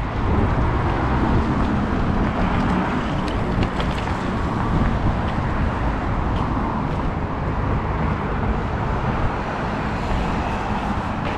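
Steady city road traffic noise, with cars passing continuously.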